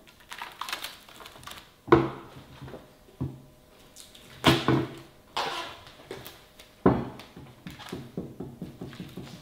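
Food containers being covered and handled: about five sharp knocks and clatters spread over several seconds, with softer rattling between them.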